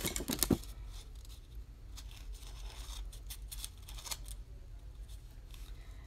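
A table knife clicking and scraping in a small ceramic bowl of seed butter and then spreading it on an ice cream cone: a quick cluster of clicks in the first half second, then light scattered scrapes.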